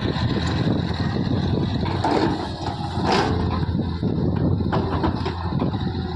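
Diesel engine of a JCB earthmoving machine running steadily under work, with scattered clanks and a short hiss about three seconds in.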